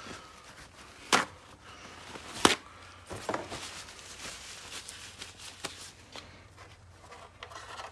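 Tools and parts being handled on a wooden workbench: two sharp knocks, about a second in and again a second and a half later, then lighter clicks and rustling.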